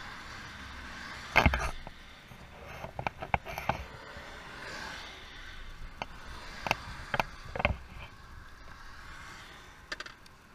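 Scattered knocks, clicks and scrapes over a faint steady background noise. The loudest knock comes about a second and a half in, with further clusters in the middle and near the end.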